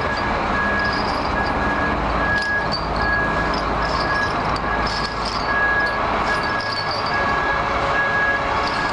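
A machine's electronic warning beeper sounding steadily, about one and a half short beeps a second, over a heavy machine's engine running. Steel tyre-protection chain clinks now and then as it is handled.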